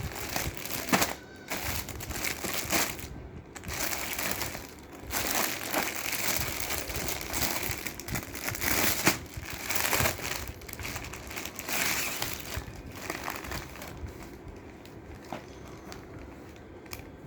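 Packaging crinkling and rustling in irregular bursts as it is handled and opened, growing quieter in the last few seconds.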